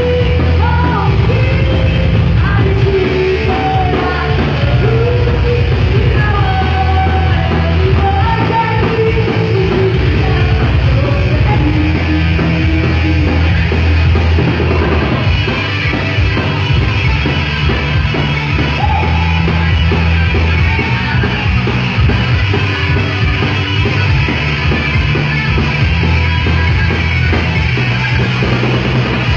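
Heavy metal band playing live, loud and dense with distorted guitars, bass and drums, and a woman singing over it.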